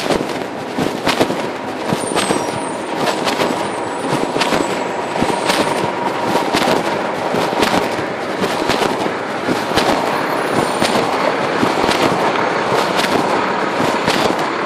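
Fabric rubbing and scraping over a phone's microphone inside a pocket while walking: loud, irregular crackles and scratchy rustling over muffled street noise.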